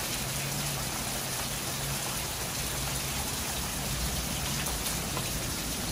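Heavy rain falling steadily on the pavement, the flooded street and the nearby roof edge. A faint steady low hum runs under it for most of the time and fades out near the end.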